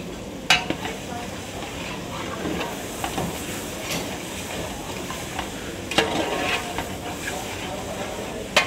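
Commercial kitchen background noise: a steady hiss with sharp metallic clinks of utensils, about half a second in, at about six seconds and near the end.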